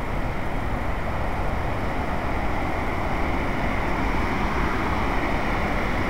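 Steady rushing of whitewater rapids and waterfalls, an even, unbroken roar of water.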